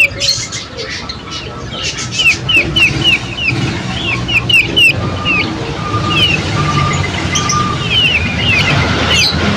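Small birds chirping rapidly, a string of short hooked notes about three a second, with a run of four even, lower whistled notes about halfway through.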